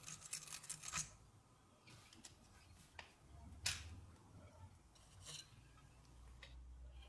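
Quiet handling of thin brass tubing against a small tin boiler: a short rustling scrape in the first second, then a few sharp metallic clicks, the loudest a little past three and a half seconds in.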